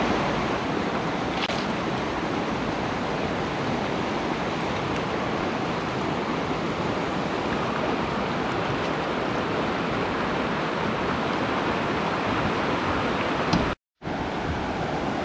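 Steady rush of river water flowing over shallow gravel rapids.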